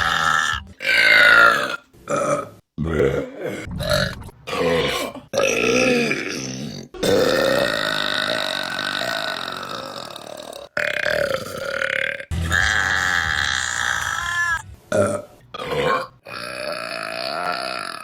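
Women's burps cut back to back, about a dozen, most around a second long. About seven seconds in, one long drawn-out burp lasts nearly four seconds.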